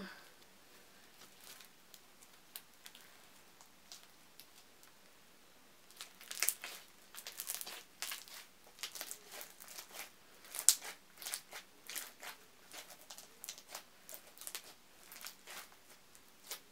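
Thick clear slime with colourful beads being squished and stretched by hand, giving a few faint clicks at first, then a busy run of sharp crackling pops and clicks from about six seconds in.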